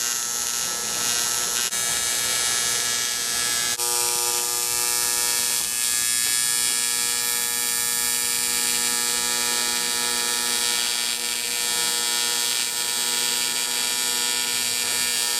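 A steady electrical hum and buzz with a strong hiss behind it, like a motor or machine running. Its character changes abruptly twice in the first four seconds.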